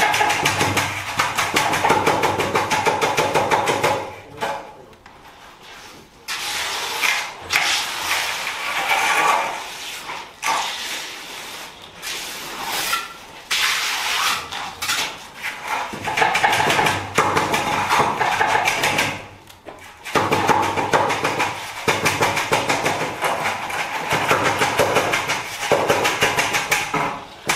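Wet concrete being beaten with rapid, repeated taps from a hand tool, a dense clattering run that pauses for about two seconds near the start and briefly again later. The beating settles the aggregate and brings the water up so the pour levels itself.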